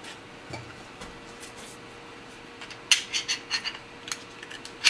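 Light metal-and-polymer clicks from a Glock 17 cutaway pistol being handled and its slide worked by hand: a few faint ticks early, a quick run of sharp clicks about three seconds in, and one sharp click near the end.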